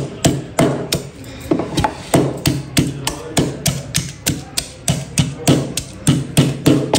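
Steady rhythmic knocks, about three a second, of fresh ginger being crushed in the kitchen for a ginger-and-honey cough remedy.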